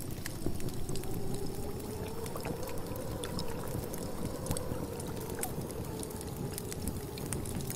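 Café background ambience: a steady noisy bed with scattered small clinks of cups and dishes, and a liquid pouring sound.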